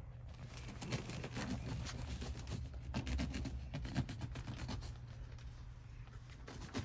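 A blade cutting into an Aireloom mattress's cotton padding and fabric while the layers are rubbed and pulled apart. It makes a run of short, scratchy rubbing and scraping strokes that thins out after about five seconds.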